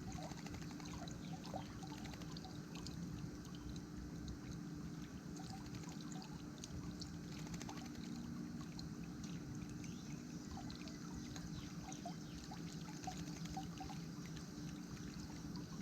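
Water in a bird bath trickling and splashing steadily, with many small drip-like ticks.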